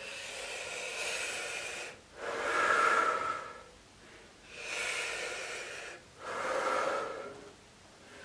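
A person breathing slowly and deeply: two full breaths, each a long, airy stretch followed at once by a louder, lower one.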